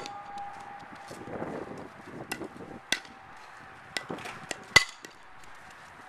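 Softball bat hitting a tossed softball in batting practice, a sharp crack about five seconds in that is the loudest sound, with several lighter knocks and clicks in the seconds before it.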